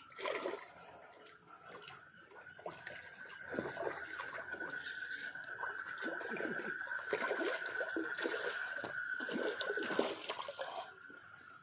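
Water splashing and dribbling in irregular bursts, over a steady high-pitched whine that stops about ten seconds in.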